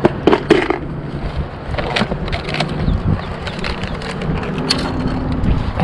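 Wind buffeting the microphone in a steady rumble, with a few sharp clicks and rustles of tools and packets as a hand rummages through a soft tackle bag.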